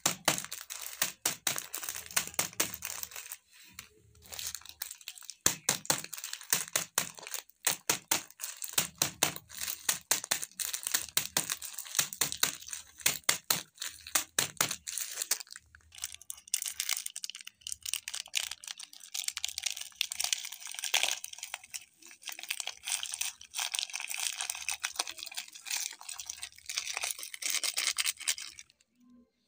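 Plastic biscuit wrappers crinkling and crackling in quick irregular bursts as the biscuits inside are crushed by hand and with a wooden rolling pin. About halfway through the crackle turns more continuous.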